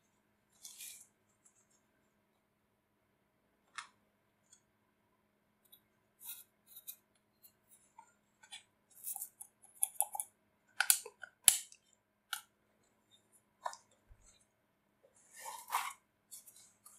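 Handling noise from a corroded antique hand-cranked hammer drill being turned over in the hands: scattered small clicks and short scrapes of its loose, rusty parts and the hands on it, with two sharper clicks a little past the middle.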